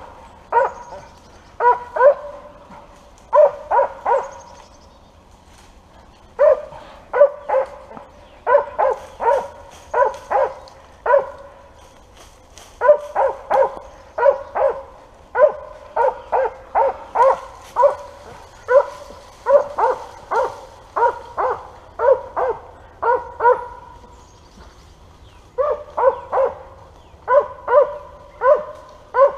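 A squirrel dog barking steadily in quick runs of barks, pausing briefly a few times: tree barking at a squirrel it has treed.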